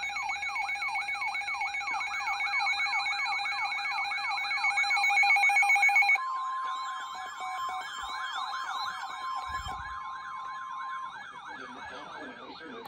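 Emergency alert tones heralding a severe thunderstorm warning: a siren-like warble sweeping up and down about four times a second, layered with steady alert tones. About six seconds in, the steady tones switch to a single steady tone, which stops about eleven seconds in while the warble carries on.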